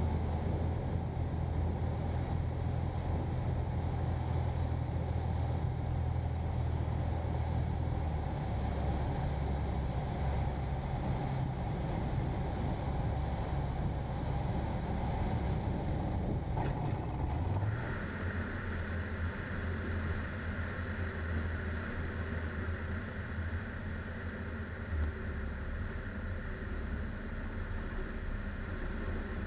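Light-aircraft piston engine and propeller running steadily at low power during the landing and ground roll, heard as a deep, even drone. About two-thirds of the way through, the sound changes abruptly to a thinner drone with an added hiss, the same engine heard from outside the aircraft.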